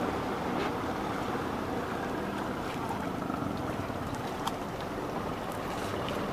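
Steady drone and water wash of a small boat moving slowly on a river, with a few faint clicks.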